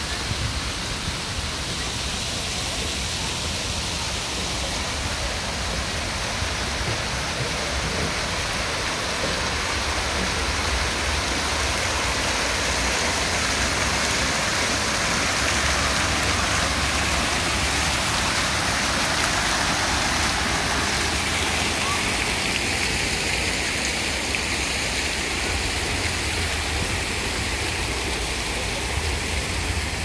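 Fountain water jets splashing into the basin, a steady rushing spray that grows a little louder through the middle and eases off again toward the end.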